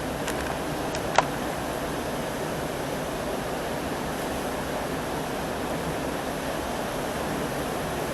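Steady rushing of river water, with a single sharp click about a second in.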